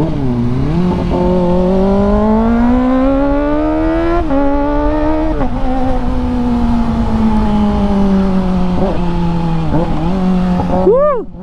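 Kawasaki ZX-25R's 249 cc inline-four, breathing through an IXIL aftermarket exhaust with its DB killer still fitted, pulling hard under acceleration: the pitch climbs steadily for about four seconds, steps down about five seconds in, sags slowly as it eases off, then rises sharply once more and drops near the end.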